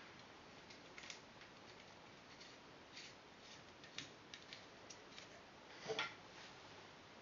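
Faint small clicks and taps of hard parts being handled as compression rings are pressed onto a Silverback SRS bolt part, with a louder clatter about six seconds in.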